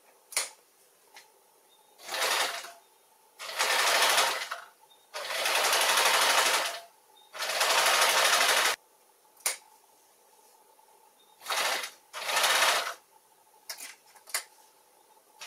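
Domestic electric sewing machine stitching quilting lines through gingham fabric in about six short runs of one to two seconds, stopping and starting, with a few sharp clicks in the pauses between runs.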